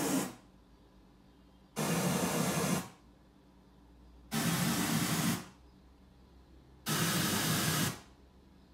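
Pioneer VSX-832 AV receiver's Full Auto MCACC calibration test signal played through the Polk speakers: bursts of hiss-like noise about a second long, repeating about every two and a half seconds. The tail of one burst ends right at the start, then three more follow as the receiver measures the speakers one by one.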